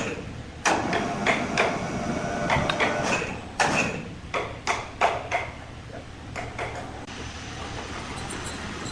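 Sawmill machinery with a large circular saw running steadily, under a run of sharp knocks and clunks during the first five seconds or so, then a steadier running sound with a faint high whine near the end.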